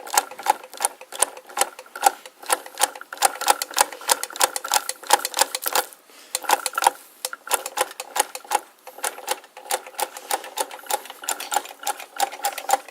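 Antique Birch rotary chain-stitch sewing machine running, its mechanism clicking about three to four times a second with a metallic ring, and slackening briefly about six seconds in.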